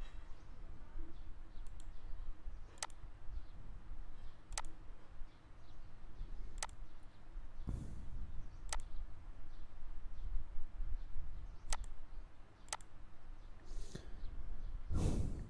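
Computer mouse button clicking, one sharp click every second or two, about seven in all and unevenly spaced. A short low rustle comes near the end.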